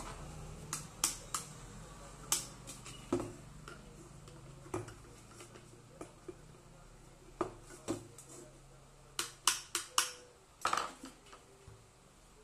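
Irregular metallic clicks, taps and clinks of a screwdriver and loose parts against a stainless-steel electric kettle being taken apart, with a quick run of sharp clicks about nine to eleven seconds in.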